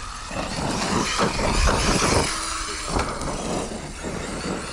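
Arrma Fireteam brushless electric RC car driven around a dry dirt track: motor and drivetrain whine with tyres on dirt, louder for a couple of seconds in the middle as it passes.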